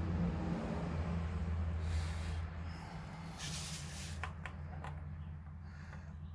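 Parts being handled by hand: two brief rustling scrapes, then three sharp clicks, over a steady low hum.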